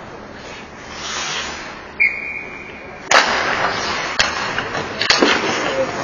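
Ice hockey play on the rink: a short steady high whistle about two seconds in, then skates scraping the ice with several sharp stick-and-puck knocks.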